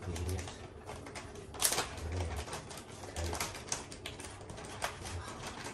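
A plastic packet crinkling and rustling as it is handled, giving irregular clicks and crackles, with one sharper snap about a second and a half in.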